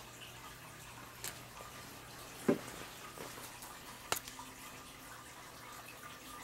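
Three light clicks of K'NEX plastic parts being handled, about a second in, about two and a half seconds in (the loudest) and about four seconds in, over a faint steady low hum.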